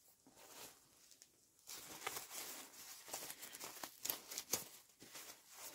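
Faint rustling and crinkling of a diaper and baby clothes being handled, in many short crackles that start about two seconds in.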